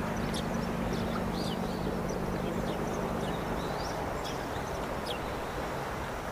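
Small birds chirping in short, scattered calls over a steady low engine hum, which fades somewhat after about three and a half seconds.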